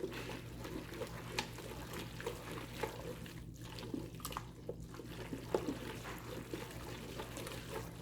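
Spoon stirring penne pasta with freshly grated Parmesan and the leftover cooking liquid in a pot: soft wet squelching with small irregular clicks of the spoon against the pot.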